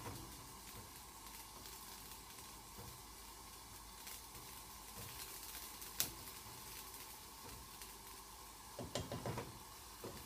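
A wooden spoon stirring lentils in a simmering stainless steel pot, faint over a steady hiss from the pans on the gas hob. One sharp knock comes about six seconds in, and a short run of knocks near the end as the lid is put on the pot.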